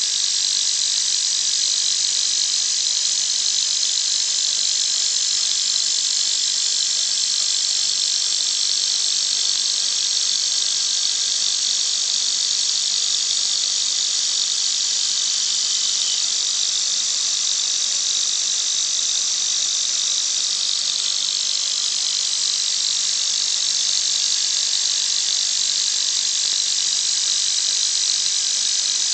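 Milling-machine spindle turning a 6-inch three-jaw chuck at speed, used as a CNC lathe: a steady high-pitched whine with a hiss. Its tone shifts slightly about 16 and 21 seconds in.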